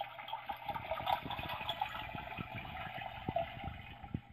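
Tayo robot gas station toy playing a gushing fuel-filling sound effect through its small, tinny speaker, under scattered light knocks.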